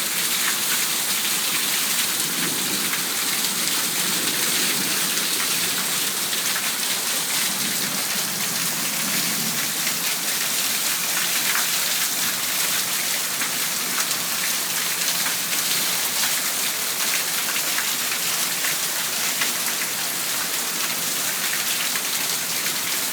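Steady heavy rain splashing down onto a flooded balcony, fed by water spilling from overflowing gutters. It is an even hiss with no letup.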